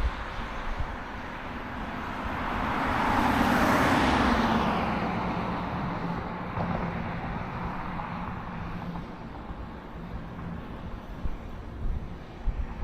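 A car passing on the road, its tyre and engine noise swelling to a peak about four seconds in and then fading away as its hum drops in pitch. Wind rumbles on the microphone.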